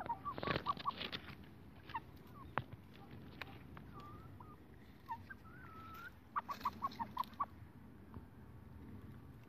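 Young crested cockerels clucking: a quick run of short clucks at the start and another about six and a half seconds in, with a few longer drawn-out calls in between.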